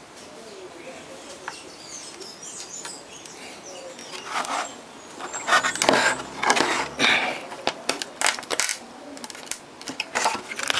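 Handling noise from a TV power supply circuit board being turned over on a workbench: a run of knocks and scrapes from about four seconds in. Birds chirp faintly in the background before that.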